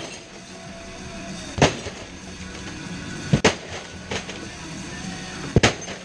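Three heavy blows smashing a flat-screen TV, about every one and three-quarter seconds, with a lighter knock between the second and third. Background music plays throughout.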